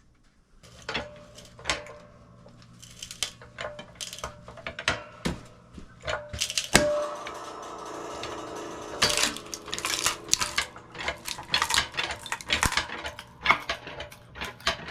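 Hand-pumped 10-ton hydraulic log splitter being worked: irregular metallic clicks, knocks and clatter from its pump handles and ram, with a rougher noisy stretch a little past the middle.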